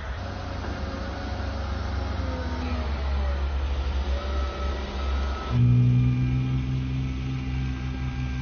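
Diesel engine of a wheel loader running under load, its pitch rising and falling as it works snow. About five and a half seconds in, the sound cuts abruptly to a steady low hum.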